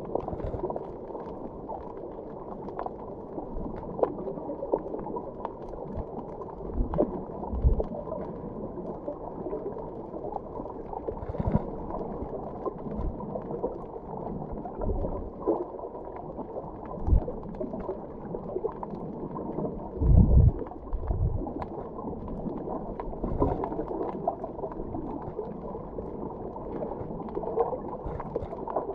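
Muffled underwater water noise picked up by a camera below the surface, a steady dull wash. Several low thumps break through it, the loudest a short cluster about two-thirds of the way in.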